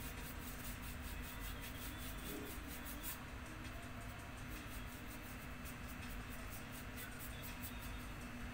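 Paintbrush strokes scratching faintly over paper as paint is spread, short and irregular, over a steady low hum.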